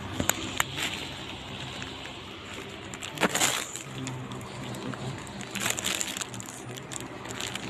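Handling noises: two sharp clicks near the start, then two short crinkling bursts, one about three seconds in and one about six seconds in, over a low steady hum.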